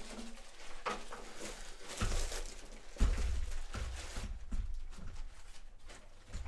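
Clear plastic bag crinkling and rustling as a printer is pulled out of it, with handling bumps, the loudest about three seconds in.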